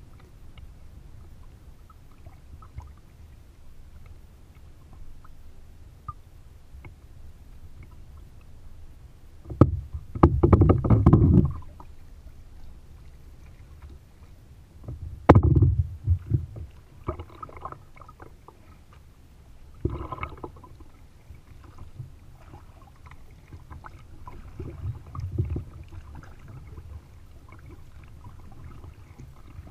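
Kayak paddling: a double-bladed paddle dipping and splashing beside the hull over a low steady rumble of water. The louder splashes come in bursts, the biggest about ten seconds in, and another about fifteen seconds in opens with a sharp knock.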